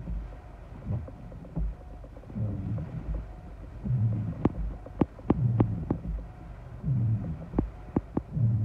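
Wind-driven rain heard from inside a car: low rumbling gusts buffet the car every second or two, and scattered sharp taps of heavy raindrops strike the glass and roof, in a clutch about halfway through and again near the end.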